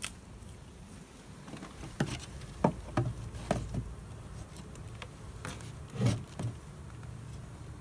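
Honeybee swarm buzzing steadily, with several brief louder buzzes that drop in pitch as single bees fly close past, about two to four seconds in and again about six seconds in.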